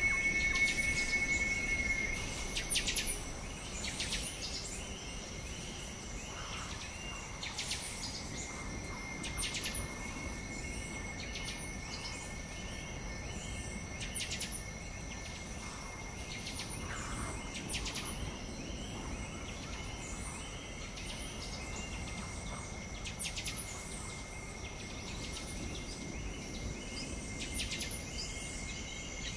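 Scattered short bird chirps over a steady, high-pitched insect drone.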